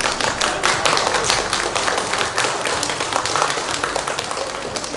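Audience applauding, with many individual claps heard in quick, irregular succession.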